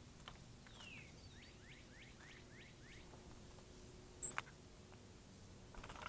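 A bird singing faintly, a run of about seven quick down-slurred whistled notes, then a single sharp high click. Just before the end a female northern cardinal starts splashing in a shallow bird bath.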